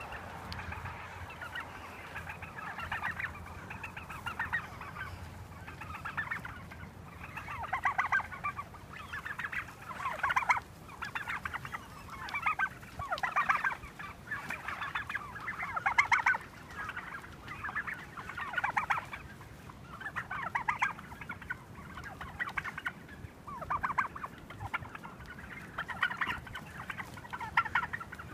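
Flock of heritage turkeys calling, many birds overlapping in bursts every second or two.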